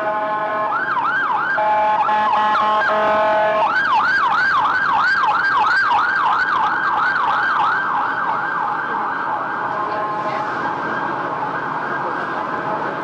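Emergency vehicle siren in a fast yelp, rising and falling about three or four times a second, loudest a few seconds in and fading toward the end. A held steady tone comes before the yelp, and city traffic noise runs underneath.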